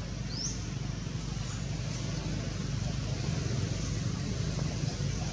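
Steady low background rumble, with a short rising high chirp about half a second in.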